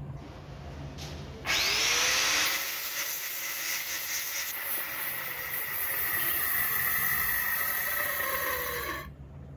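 Angle grinder's abrasive disc grinding down a small steel bearing ball held against it, to make the ball small enough to seat in the drill spindle. The grinding starts about a second and a half in, runs steadily, and stops near the end.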